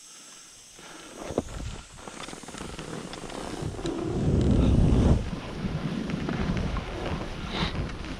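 Wind rushing over the microphone and skis running over packed snow as the skier gathers speed, growing louder to a peak about four to five seconds in, then easing a little.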